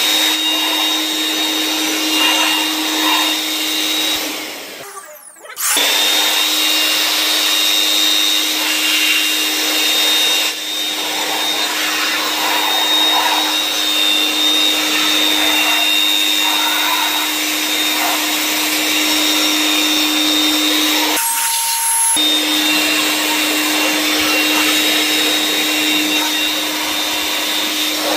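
HILDA 600W handheld electric air blower running: a steady high motor whine over rushing air. About four seconds in it winds down and stops, then starts again about a second later. The tone changes briefly around twenty-one seconds in.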